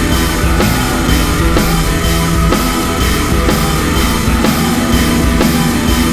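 Rock music with drums and guitar, loud with a steady beat.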